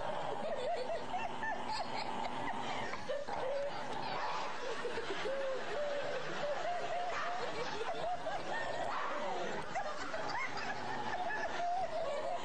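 People laughing without a break, in short wavering bursts.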